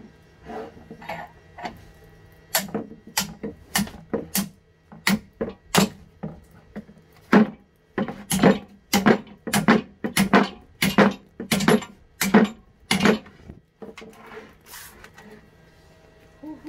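A hammer strikes a rusty steel bench vise in a run of sharp blows, about two a second. The blows stop about two-thirds of the way through, with only a few light knocks after.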